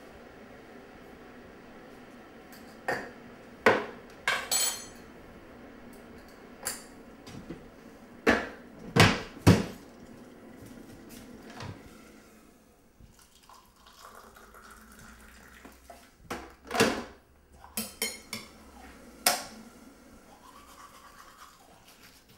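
Kitchen handling sounds: a spoon clinking against a mug and crockery knocked down on the counter, as about a dozen separate sharp clinks and knocks with short pauses between them.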